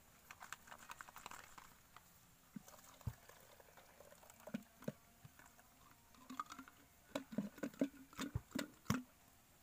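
Hand work on a diesel fuel filter assembly: scattered light plastic and metal clicks and knocks as the diesel-filled filter bowl is turned and fitted onto the filter head, with a little liquid sloshing. A quicker run of knocks comes near the end.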